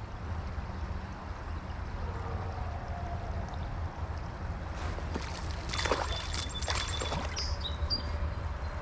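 Creek water running and trickling steadily, with a cluster of sharp clicks and scrapes about five to seven seconds in.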